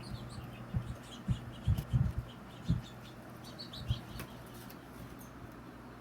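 Young squirrels moving about, with about seven soft, irregular thumps in the first four seconds and faint, short, high chirps, over a steady low hum.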